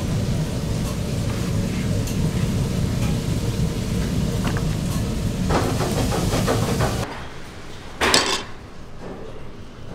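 Gloved hand scooping and pressing minced dumpling filling in a plastic tub: soft wet squishing and rustling over a steady low rumble. The rumble cuts off suddenly about seven seconds in, and a short rustle follows about a second later.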